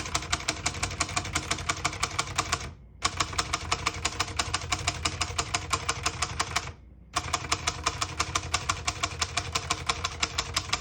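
Keys of a 1960 Hermes Rocket portable typewriter being struck in quick, even succession, about nine clacks a second. The typing comes in three runs, with brief pauses about three seconds in and about seven seconds in.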